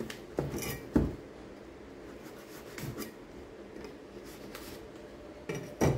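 A large kitchen knife scraping at the seal stickers of a cardboard smartphone box on a tabletop: light scratching with a few sharp knocks, the loudest about a second in and another near the end.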